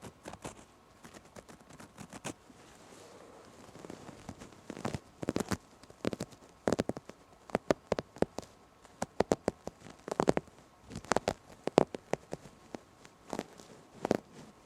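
Close-up ASMR tapping and scratching on fabric: quick, irregular taps, sparse at first and coming thick and fast from about five seconds in.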